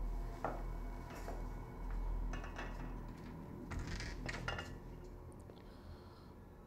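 A few scattered light clinks and clicks, most clustered in the middle, over a low steady hum.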